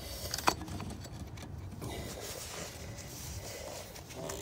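Low handling noise from hands and tools working at an engine's serpentine belt tensioner, with one sharp click about half a second in.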